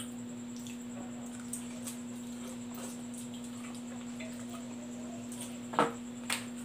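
Quiet eating sounds from a person eating spicy instant noodles with plastic forks: faint small clicks, then two short sharp clicks near the end, over a steady low hum.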